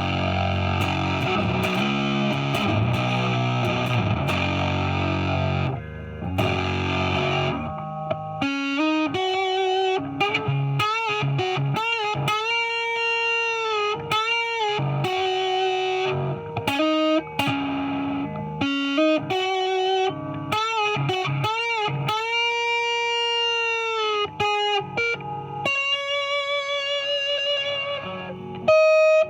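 Epiphone 1959 Les Paul Standard reissue electric guitar on its neck pickup, played through a Fuzz Face fuzz pedal. It opens with about eight seconds of thick fuzzed chords, then goes to a lead line of single notes, several of them held and bent with vibrato.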